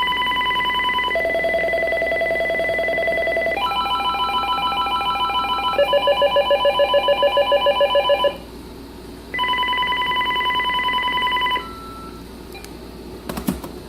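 AT&T E1813B cordless phone handset stepping through its electronic ringtones one after another. Each is a steady tone pattern that changes to a new one every two or three seconds, and one is a fast pulsing trill. After a short pause one more ringtone plays, then a single short beep and a couple of clicks near the end.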